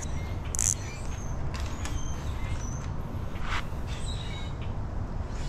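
Small birds chirping now and then over a steady low rumble, with a short sharp rasp of a plastic zip tie being worked about half a second in.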